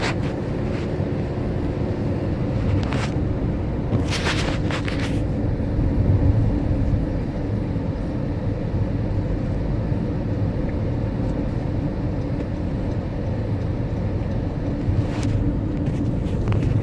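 Steady car road noise from inside the cabin while driving: a low engine and tyre rumble, with a few brief knocks or clicks.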